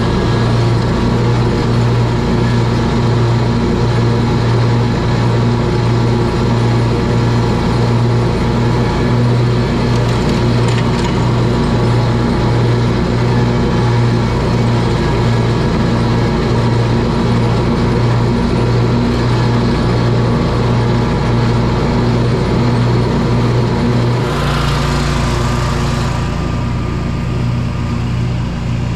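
Scag Tiger Cat zero-turn mower running steadily while mowing and mulching leaves, its engine and deck together; about 24 seconds in the engine note shifts to a different, steadier tone.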